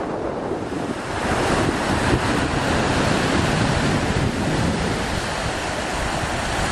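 Sea waves washing, with wind buffeting the microphone; the wash swells about a second in and stays up.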